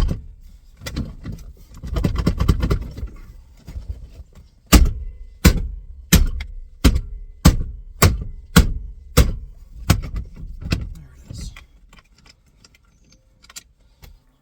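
A steering wheel being knocked loose from its splined column shaft without a puller, its nut threaded partly back on to catch it. A rattling stretch in the first few seconds, then about nine sharp knocks, each a little over half a second apart, dying to light taps near the end.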